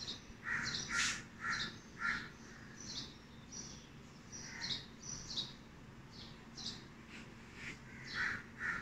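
Birds calling and chirping in the trees: many short calls, some lower and harsher, some high and thin, scattered throughout.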